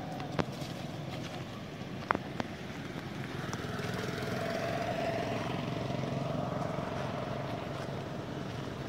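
A motor vehicle's engine swelling and fading as it passes, over a steady low hum, with a few sharp clicks in the first few seconds.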